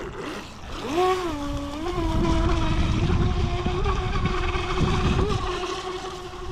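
Brushless electric motor of an RC speedboat whining as it runs on the water: the pitch climbs about half a second in, dips and climbs again, then holds fairly steady with small wavers as the throttle is held.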